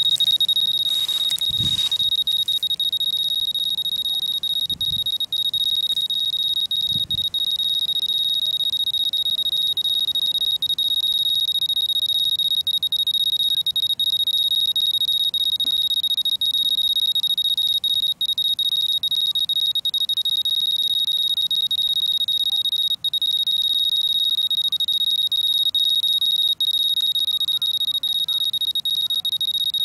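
Handheld radiation dosimeter's high-dose-rate alarm sounding as one continuous high-pitched electronic tone while the meter reads about 1.4 µSv/h. A few low handling bumps come in the first several seconds.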